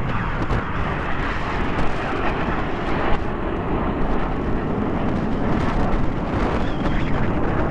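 BAE Hawk T1 jets flying past, a steady rushing jet noise, mixed with wind buffeting the microphone.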